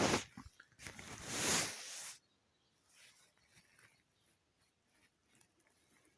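Kitten snoring in its sleep: a loud hissing breath lasting about a second and a half near the start, then a few faint, irregular breaths.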